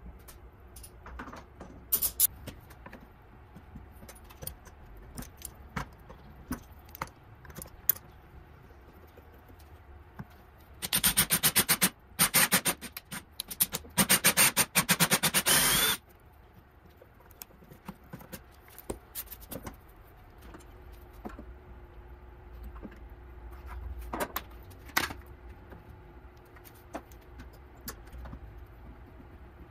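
Cordless drill boring a hinge-cup hole through a Kreg hinge jig into walnut plywood, running loudly in a few short bursts for about five seconds a third of the way in. Before and after it, scattered light clicks and knocks of the jig and tools being handled.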